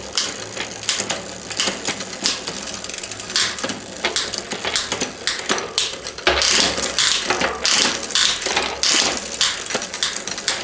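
Bicycle drivetrain turned by hand: the chain runs over the rear freewheel's cogs and the rear derailleur's pulleys with a dense clicking rattle as it shifts through the rear gears, louder from about six seconds in. The rear shifting works cleanly.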